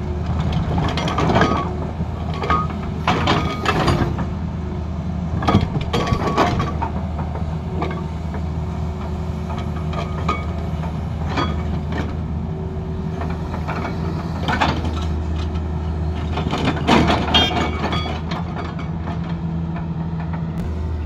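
Tata Hitachi tracked excavator's diesel engine running steadily, with irregular clanks and knocks as its hydraulic rock breaker is raised, set down and pushed against broken rock.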